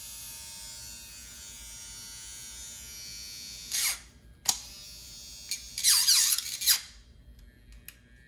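The exposed motor of a dismantled Oral-B electric toothbrush runs with a steady buzz. Around four to seven seconds in come several knocks and a short clatter of the plastic and metal assembly being handled and set down. The buzz stops about seven seconds in.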